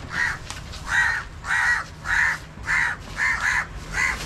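Crows cawing over and over, about two harsh caws a second, no speech.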